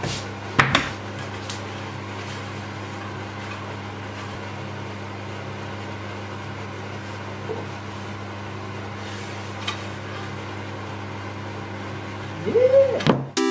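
Steady electric motor hum of a running workshop machine, a fan-like drone with a low mains-frequency tone. A wooden knock comes about half a second in as wood is handled, and a short swooping tone rises and falls near the end.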